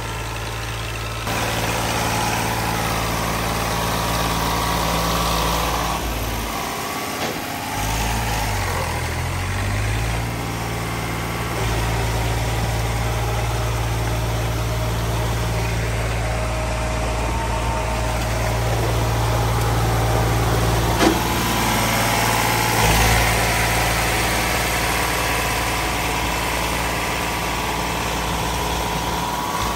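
Tractor diesel engine working hard under load as its rear wheels spin in deep mud. The revs dip and rise again about a quarter of the way through, then hold steady.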